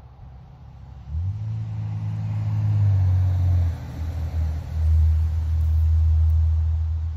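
A vehicle driving past on the road: its engine's low drone comes up about a second in, dips for a moment around four seconds in, then holds loud before easing off near the end.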